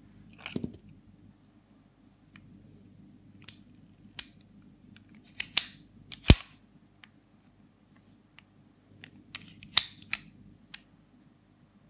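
Sharp metallic clicks and clacks of a handmade Star Super B-style 9 mm pistol being handled: the slide worked back and forth and the controls operated. The loudest clack comes about six seconds in.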